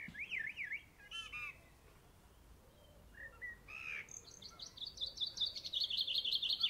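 A small bird singing: a quick warbling phrase at the start, a few short chirps, then a fast trill of rapid high notes over the last few seconds.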